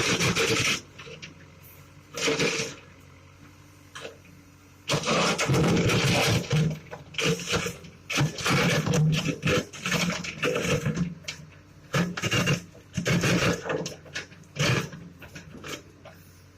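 Backhoe loader working: its engine runs steadily under irregular loud bursts of noise, some lasting a second or two.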